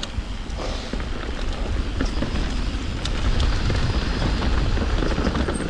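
Wind rumbling on the microphone with scattered clicks and rattles from travel over a wet, rocky trail.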